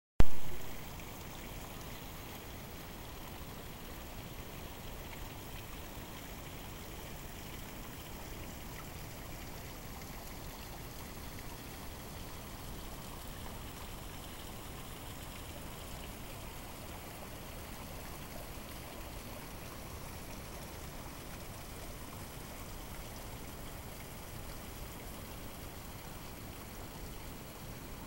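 Steady rush of a partly iced-over river flowing past ice floes, with a loud noise at the very start that fades within a second.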